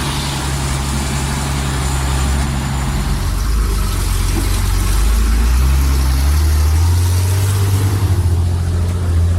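Heavy diesel engine of a DAC 665T truck running under load, its pitch dropping about three seconds in and rising again later as it revs while the vehicle struggles for grip on ice.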